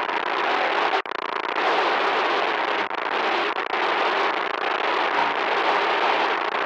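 Loud static noise, a dense unbroken hiss with a crackly, fluttering texture and a brief dropout about a second in.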